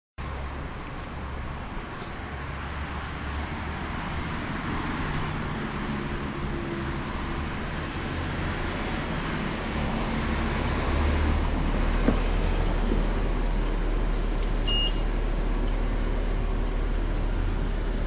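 A 2009 New Flyer D40LFR transit bus under way, heard from on board: the Cummins ISL diesel engine and road noise make a steady rumble that grows louder about ten seconds in. A short high beep sounds near the middle.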